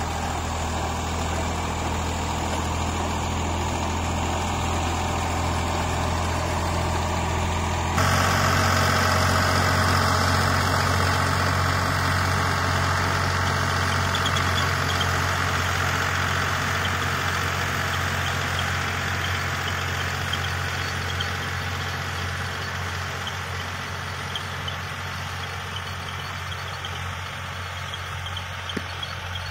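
Tractor diesel engine running steadily under load while pulling a rotavator through soil. It gets suddenly louder about eight seconds in, then slowly fades.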